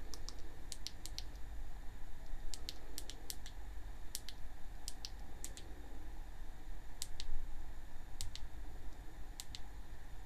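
Buttons clicking as the camera's on-screen menu is stepped through, pressed in short runs with most presses giving a quick double click, over a steady low hum.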